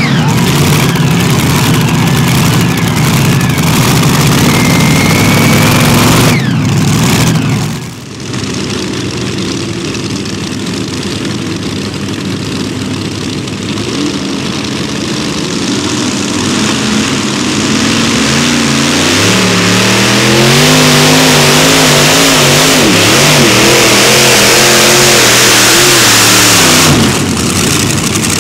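Multi-engine modified pulling tractors under full throttle. One runs loud and steady, then drops off about 7 s in; another idles, then about 18 s in goes to full power with its pitch surging up and down as it pulls the sled, and cuts back near the end.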